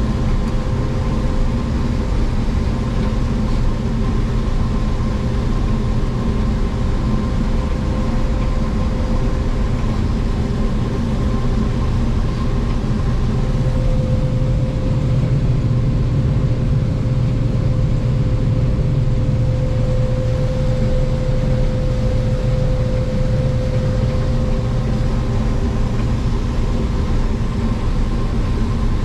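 John Deere combine running steadily while harvesting corn: a constant low engine drone with a steady whine above it, swelling slightly midway.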